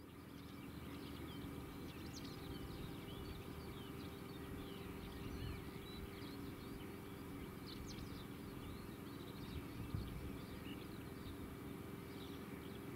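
Songbirds chirping and singing in many short calls over a steady low rumble of outdoor background noise.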